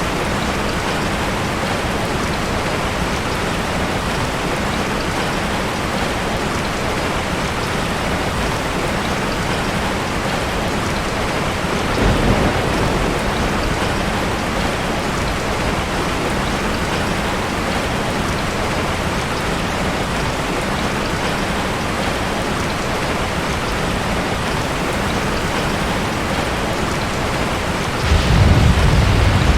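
Steady heavy rain with rolls of thunder: a short low rumble about twelve seconds in and a louder one starting near the end.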